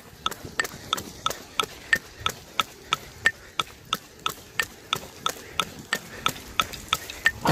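A metronome ticking steadily at about three clicks a second, around 180 beats a minute. Each tick is a short, sharp pitched click.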